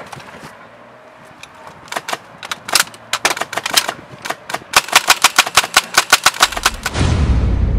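Airsoft rifles firing: sharp snapping shots, single and in short bursts, with a fast automatic run of about nine shots a second about two-thirds through. Near the end a low-pitched music track comes in.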